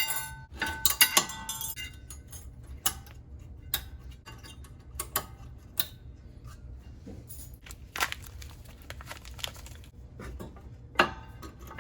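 Metal brake parts clinking and rattling as brake pads and their metal clip hardware are handled: a ringing clink in the first couple of seconds, then scattered clicks and knocks.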